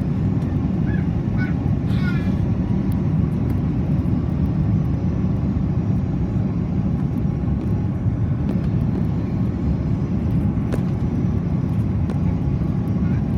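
Steady drone of engine and airflow noise heard inside the cabin of an Airbus A330-343 airliner, which has Rolls-Royce Trent 700 engines, holding at an even level throughout.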